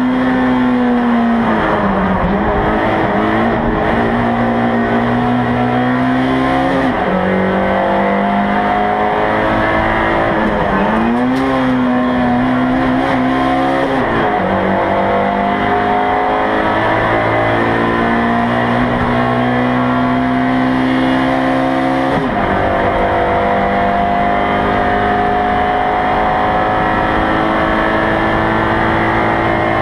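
Race car engine heard from inside the cockpit, running hard under load: its pitch climbs slowly as it pulls through the revs and drops sharply several times at gear changes.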